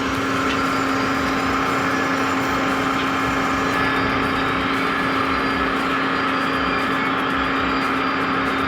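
Heavy machine running steadily, an even engine-like drone with a constant mid-pitched hum and no change in speed.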